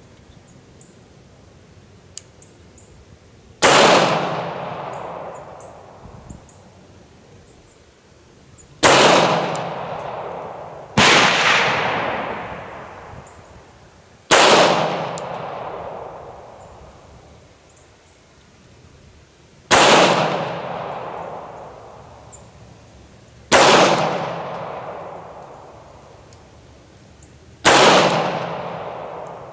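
Beretta 92X Performance 9mm pistol firing 147-grain Federal rounds: seven single shots spaced a few seconds apart, each trailing off in a long echo.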